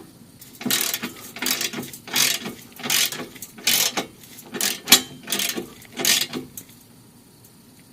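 Ratchet wrench tightening an exhaust pipe clamp, clicking in a string of short strokes, about one every three quarters of a second, then stopping.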